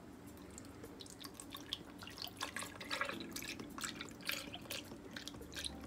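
Macadamia nut milk poured from a carton into a glass blender jar onto frozen banana slices: liquid splashing and dripping in irregular spatters, starting about half a second in.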